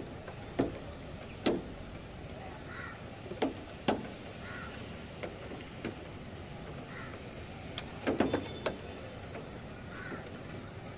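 Steady rain and wind noise from a thunderstorm, broken by sharp knocks or clicks at irregular intervals, with a cluster of them about eight seconds in.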